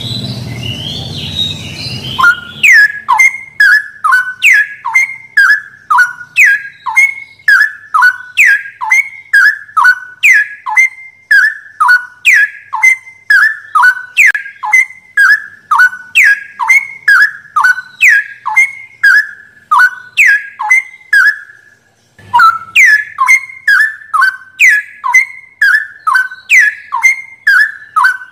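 A songbird's loud whistled call: a note that slides steeply down in pitch, repeated about twice a second in a very regular loop. It starts about two seconds in, after a lower, noisier sound, and breaks off briefly near the end before resuming.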